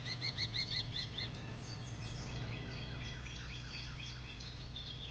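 Birds calling: a quick run of about eight sharp chirps at the start, then scattered chirps and short trills.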